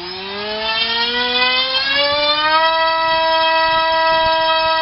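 Turnigy D2826 2000kv brushless outrunner motor driving a 6x4.5 plastic propeller on a 3S battery, throttled up to full power on a thrust test. Its whine rises in pitch for about two and a half seconds, then holds steady and high at full throttle.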